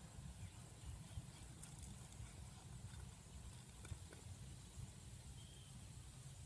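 Near silence: a faint, steady low rumble with a couple of faint clicks, one about a second and a half in and one about four seconds in.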